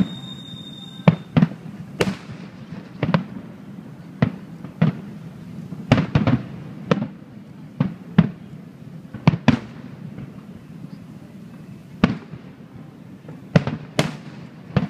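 Aerial fireworks shells bursting: an irregular run of sharp bangs, some in quick pairs and clusters, with a short lull about two-thirds of the way through.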